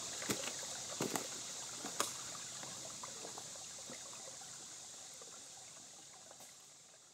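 Shallow woodland stream trickling over rocks, under a steady high drone of cicadas. A few sharp snaps or clicks come in the first two seconds, and the whole sound fades out toward the end.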